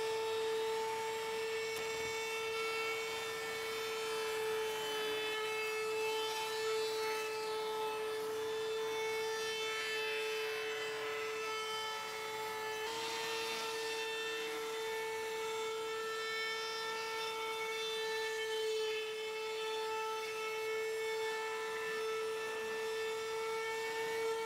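Router in a router table running at a steady high-pitched whine while a roundover bit cuts a rounded edge on a curved walnut frame fed past it by hand.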